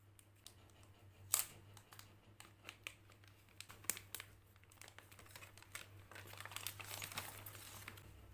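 Packaging being handled and crinkled, with scattered sharp clicks and taps, the loudest about a second in, and a denser stretch of crinkling near the end.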